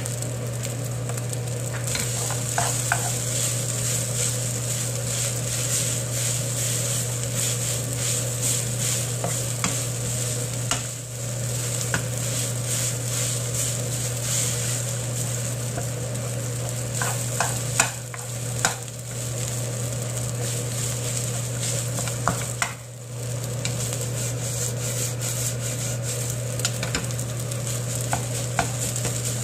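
Kimchi fried rice sizzling in a nonstick frying pan over a gas burner while a wooden spoon stirs and scrapes it, with occasional sharp clicks. A steady low hum runs underneath, and the sizzle dips briefly twice.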